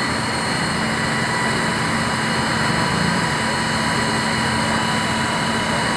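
A steady engine drone with a constant high whine over it, unchanging throughout.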